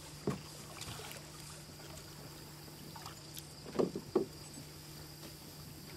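Canoe paddle working in flat water: soft dips and swirls with a few short splashes and gurgles, the loudest a pair about four seconds in. A steady low hum runs underneath.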